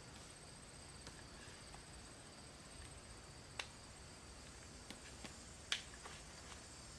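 Quiet room tone with a faint steady high whine, broken by a few small isolated clicks or ticks; the two loudest come about three and a half and five and a half seconds in.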